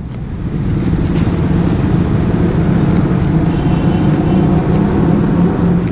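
Yamaha RX-King's two-stroke single-cylinder engine idling steadily with a fast, even putter.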